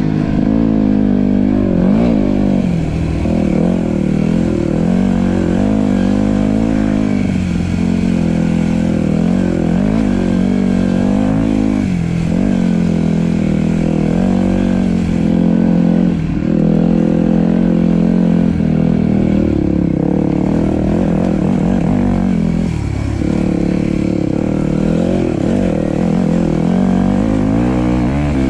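Dirt bike engine running with constant throttle changes: its pitch keeps rising and falling, with brief drops as the throttle is rolled off a few times.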